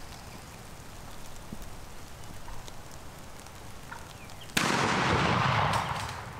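A single shot from a Mossberg 185D 20-gauge bolt-action shotgun, about four and a half seconds in: a sudden loud report that carries on for about a second before dying away.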